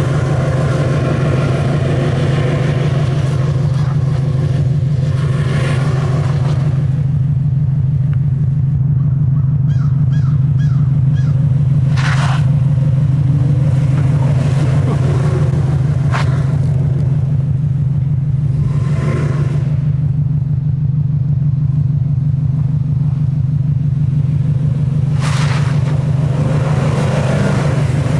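GMC Sierra pickup engine running with a steady, loud low drone while the truck slides on snow. Brief rushing bursts of noise come now and then over it.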